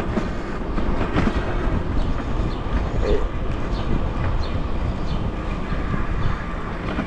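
Ride noise from an e-bike moving along city streets: steady wind rumble on the microphone with scattered clicks and rattles from the bike jolting over the pavement.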